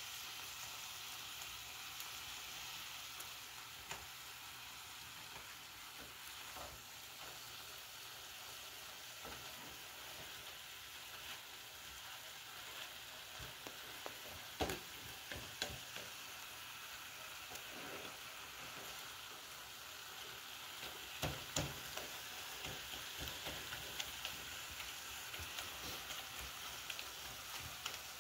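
Ground beef sizzling steadily in a metal skillet as a spatula breaks up the softened frozen patties, with scattered scrapes and taps of the spatula against the pan, the sharpest about halfway through and again around three quarters in.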